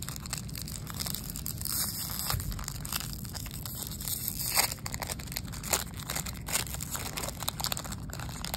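Plastic wrapper of a Topps baseball card pack crinkling and tearing as it is ripped open by hand, an irregular run of sharp crackles.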